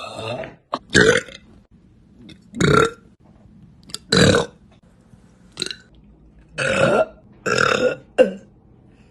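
A woman burping loudly again and again: about seven separate burps roughly a second apart, most short and one or two drawn out.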